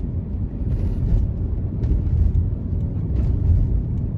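A car driving through city streets, heard from inside the cabin: a steady low rumble of road and engine noise, with a few short hisses.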